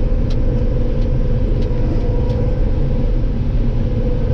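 Combine harvester running steadily while cutting soybeans: a continuous low rumble with a steady hum through it, and a few faint ticks in the first second or so.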